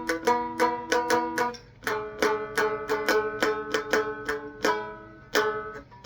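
Three-string cigar box guitar picked with a flat pick: a steady run of twangy plucked notes, about three a second, with a change of chord about two seconds in.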